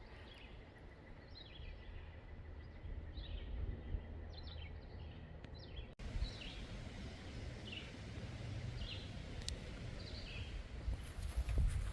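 Birds chirping in short, high notes repeated every second or so, over a low steady outdoor rumble.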